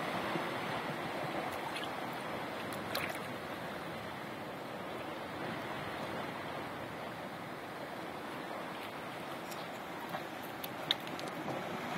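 Steady wash of sea surf on a rocky shore, with a few small clicks about three seconds in and near the end.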